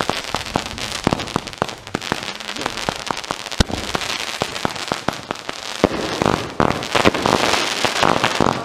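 Consumer fireworks going off: a quick, irregular string of sharp pops and crackles, with one harder crack about three and a half seconds in. The crackling grows denser and louder from about six seconds in.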